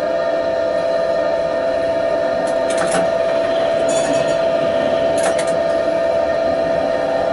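Tatra T6A5 tram accelerating, heard from the driver's cab: a steady whine over a running rumble, with a few short clinks and rattles around three, four and five seconds in.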